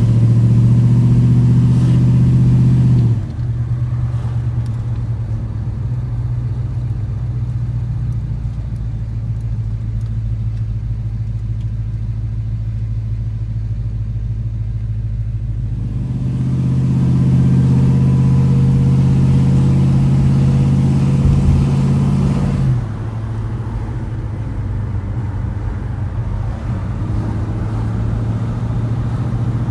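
A 454 big-block V8 running in a 1988 Chevy Suburban, a steady deep engine note. It swells louder under throttle for about three seconds at the start and again for about six seconds past the middle, then drops back to a steadier run.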